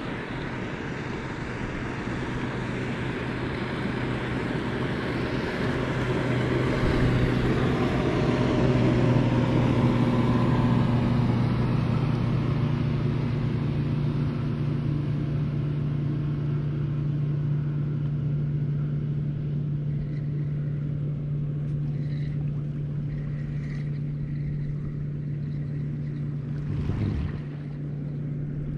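A motorboat engine drones steadily over wind and water noise, growing louder about a quarter of the way in and then holding.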